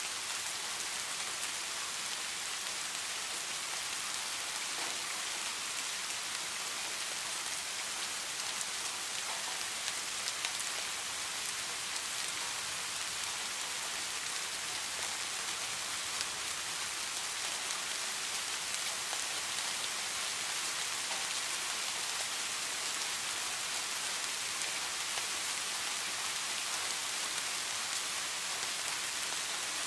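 Steady rain falling: an even hiss with a few scattered individual drop ticks standing out.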